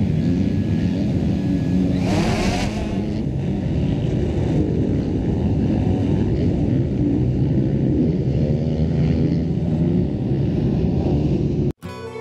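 Multirotor camera drone's propellers buzzing steadily as it lifts off and climbs overhead, with a brief rush of noise about two seconds in. The buzz cuts off suddenly near the end.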